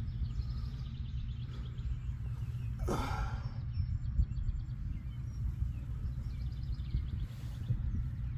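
Outdoor ambience: a steady low rumble of wind on the microphone, with faint, quickly repeated high chirps now and then and a short exhaled breath about three seconds in.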